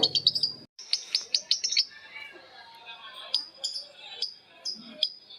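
Lovebirds chirping: a fast high chattering trill that cuts off abruptly just under a second in, a quick run of shrill chirps, then sharp single chirps repeating a few times a second.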